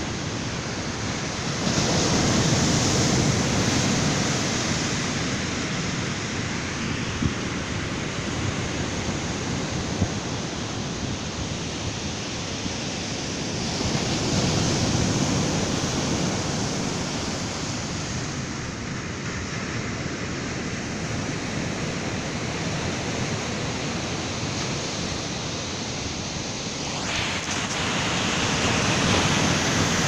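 Ocean surf breaking on a sandy beach: a continuous wash of waves, swelling louder three times as sets break, near the start, about halfway through and near the end.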